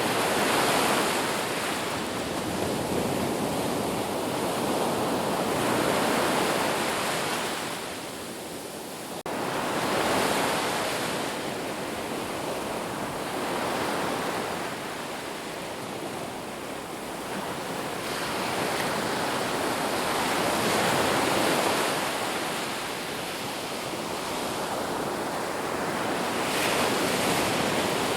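Sea waves breaking and washing on a shore, the surf swelling and falling back every several seconds. There is a momentary dropout about nine seconds in.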